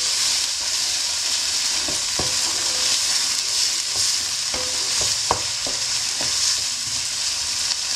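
Onion, carrot and rice with tomato sauce frying in a non-stick wok, sizzling steadily, while a wooden spoon stirs and scrapes through them, knocking against the pan several times.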